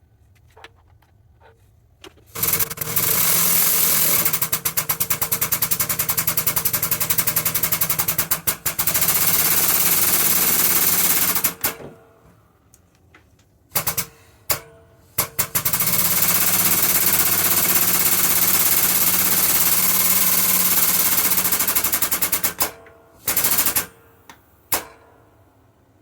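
Air-powered hammer rattling with rapid repeated strikes in two long runs of several seconds each, with a few short bursts between and after, driving new bushes into a lathe headstock gear.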